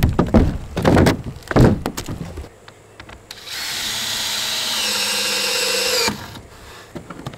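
DeWalt cordless drill driving a screw through a 2x4 purlin, running steadily for about two and a half seconds from about three and a half seconds in, its whine sagging slightly in pitch under load before it stops. A few short loud bursts come in the first two seconds.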